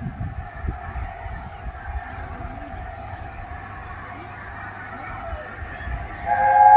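A steam locomotive whistle sounding in the distance: a long steady note, then a louder blast about six seconds in.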